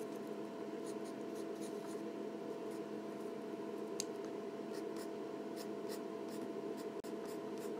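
Mechanical pencil scratching on paper in many quick short strokes, with a steady hum underneath.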